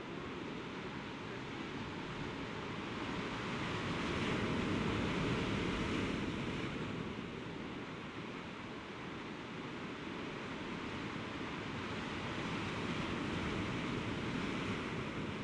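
Sea surf washing against a rocky shore. It swells twice: about four seconds in and again near the end.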